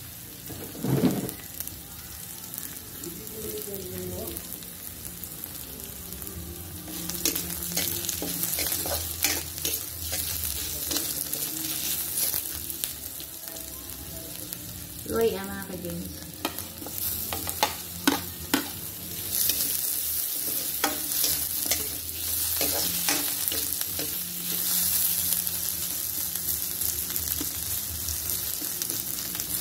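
Garlic and onion sautéing in hot oil, sizzling steadily while a spatula stirs and scrapes, with sharp clinks against the pan. The sizzle gets louder about seven seconds in and again about twenty seconds in.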